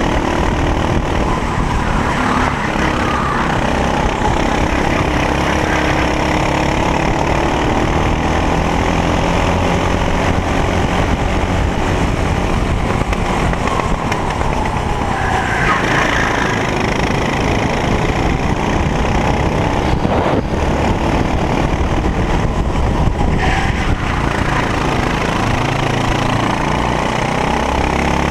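Racing kart engine heard from on board, running hard throughout a lap. Its pitch rises and falls as the kart accelerates out of corners and lifts off for them.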